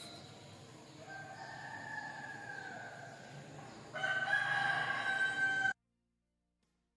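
A rooster crowing twice: a fainter crow, then a louder one that cuts off suddenly.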